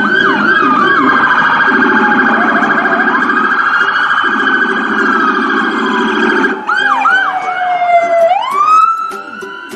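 Several police car sirens sounding at once: wails that glide slowly down and then sweep back up near the end, overlaid with fast repeated yelping sweeps and a steady warbling tone. A lower blaring tone underneath stops and starts.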